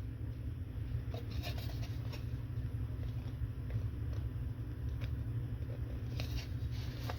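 Scattered light clicks and scrapes of an HP USB-C Dock G5's casing and internal parts being handled and pried apart, over a steady low hum.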